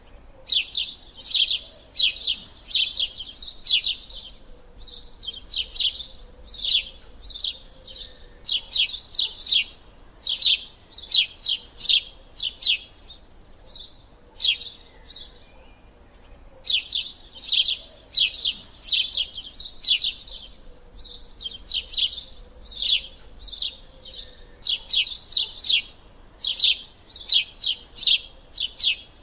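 Small birds chirping in quick series of sharp, high chirps, coming in bursts of a few seconds with a short lull about halfway through.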